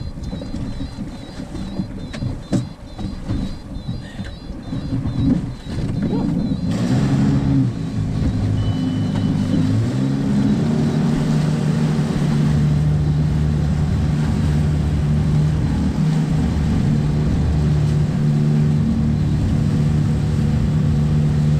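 Gusty rumbling wind noise with irregular thumps and sloshing, then about seven seconds in the boat's engine speeds up and settles into a steady drone under way, with rushing water and wind over it.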